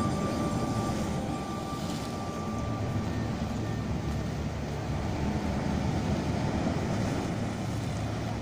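Dark cinematic background music: a low, steady drone with a few held high notes that fade out after the first two seconds.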